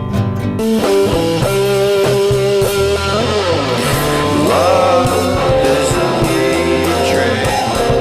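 Rock music led by guitar, changing to a new passage a little under a second in, with notes that slide up and down.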